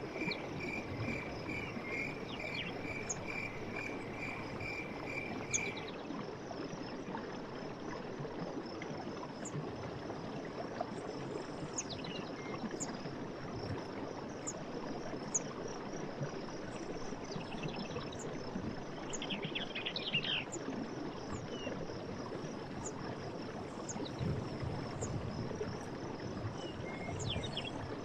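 Night forest ambience: insects chirring steadily on a high note, with scattered short chirps and an occasional frog trill. A pulsed call at about three beats a second stops about six seconds in, all over a low steady rushing.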